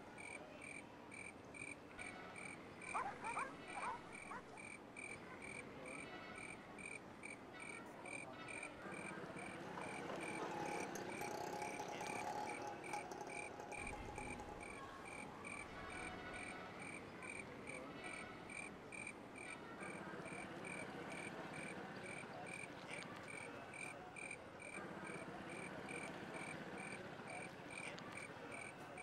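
Night ambience of crickets chirping in an even, steady rhythm, with frogs croaking beneath, faint.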